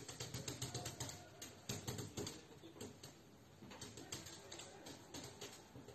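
A cat's paws and claws tapping and clicking against a flat TV screen in quick, irregular taps, with a lull about halfway through.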